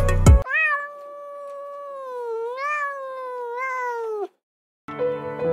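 A domestic cat's single long meow lasting nearly four seconds, wavering in pitch and dropping away at the end, with background music just before it and piano music starting just after.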